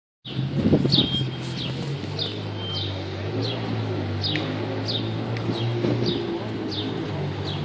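A small bird chirping over and over, short calls that slide down in pitch, about one or two a second, over the steady low hum of an idling car engine. A louder burst of noise comes in the first second.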